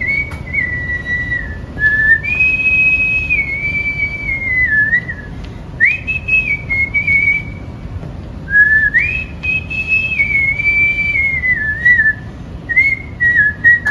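A man whistling a tune by mouth, in about five phrases with short breaks, the notes sliding up and down between pitches.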